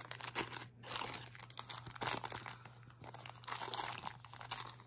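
Small clear plastic zip-top bags crinkling and rustling in the hands as they are handled and opened, in irregular crackly bursts.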